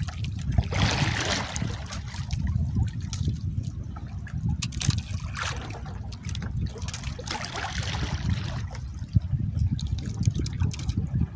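Sea water lapping and trickling against a small outrigger boat's hull, with a low wind rumble on the microphone and a few light clicks.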